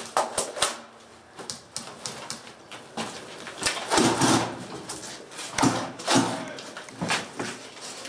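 Footsteps scuffing and gear rustling as players move through a room, with a few sharp clicks, most of them in the first second.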